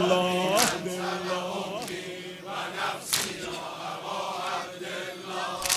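A crowd of men chanting a Shia mourning refrain (noha) together, with a collective chest-beating strike about every two and a half seconds. The lead singer's held note fades out in the first second.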